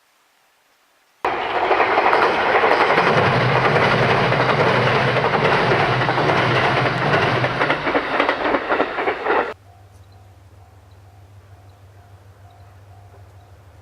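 Electric train passing close by, its wheels clattering rapidly over the rail joints. The noise starts suddenly about a second in and cuts off sharply a few seconds before the end, leaving a steady low hum.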